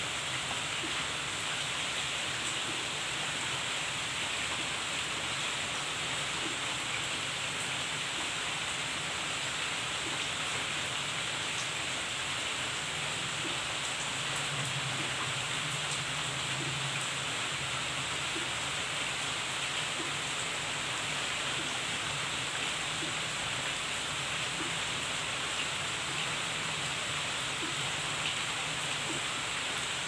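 Steady rain falling on leafy garden plants and a wet stone path: an even hiss with scattered faint drop taps.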